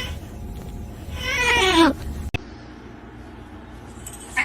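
Cat meowing: the tail of one long meow at the start, then a second drawn-out meow that rises and falls in pitch about a second in.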